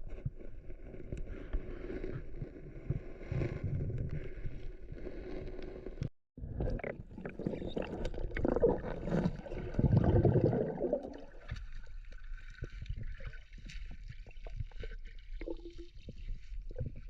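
Water sloshing and splashing, with a brief break about six seconds in and a louder stretch of splashing from about eight to eleven seconds.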